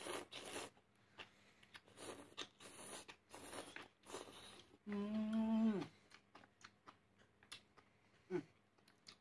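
Close-up eating sounds of noodles with baby octopus: several noisy slurps and bites over the first few seconds, then a held, hummed voice sound of about a second, loudest of all, dropping in pitch as it ends. Quieter chewing and small clicks follow.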